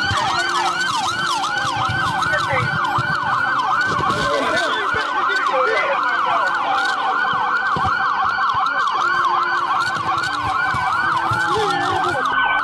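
Police sirens in a fast yelp. More than one siren sounds at once, each a rapid run of falling pitch sweeps several times a second that overlap one another, with voices underneath.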